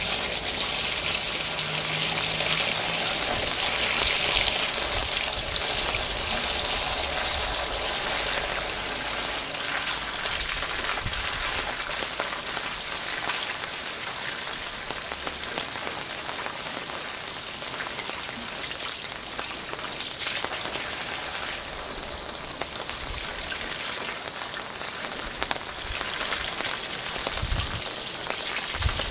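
Steady rain falling on wet paving stones, mixed with the splashing of a thin jet of water spouting from the side of a full wooden rain barrel onto the stones.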